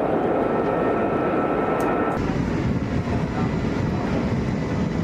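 Loud, steady aircraft engine noise that changes abruptly about two seconds in to lower-pitched noise, as at a cut between shots.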